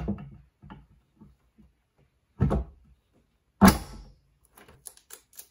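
Knocks and thuds from an Acer KA2 monitor's stand neck being pushed into the mount on the monitor's back, the loudest about three and a half seconds in, then a few light clicks near the end as it seats.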